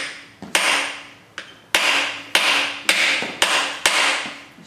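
Ball-peen hammer striking a socket held against a freeze plug, driving the core plug into the cast-iron block of a Chrysler 440 big-block V8. About seven hard metallic blows, roughly two a second, each ringing briefly.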